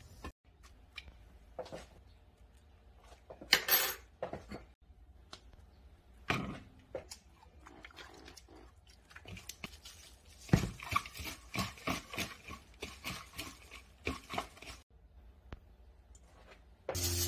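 Dishes and cutlery clinking and knocking at a meal table, mixed with chewing and mouth sounds, in scattered clicks with a busy run of quick clicks in the second half. A steady hiss starts just before the end.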